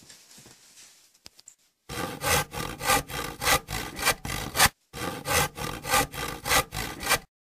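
Hand saw sawing back and forth in rasping strokes, about two a second, in two runs with a brief break in the middle; it starts about two seconds in and cuts off abruptly just before the end.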